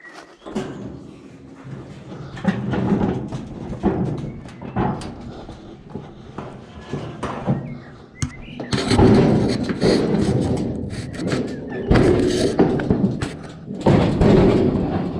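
Scrap metal being handled and loaded into a vehicle: repeated metal bangs, thuds and scraping, loudest in bursts about nine, twelve and fourteen seconds in.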